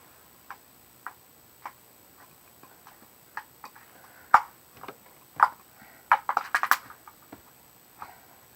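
Homemade slime being squished and stretched by hand: irregular sticky clicks and pops, sparse at first and coming thicker and louder about four to seven seconds in.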